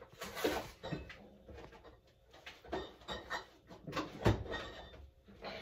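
Scattered knocks and light clatter of kitchen items being handled and set down, the loudest knock about four seconds in.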